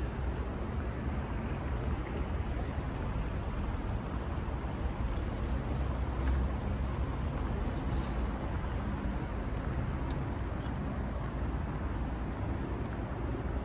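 City ambience: a steady low rumble of distant traffic with a faint hiss above it, and a couple of brief faint sounds about eight and ten seconds in.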